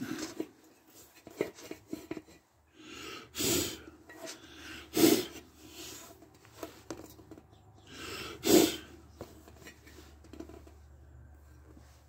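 Three short, loud puffs of breath close to the microphone, a second or more apart, over light rubbing and small clicks as a wheelbarrow tyre on its rim is turned over by hand. A faint low hum comes in about four seconds in.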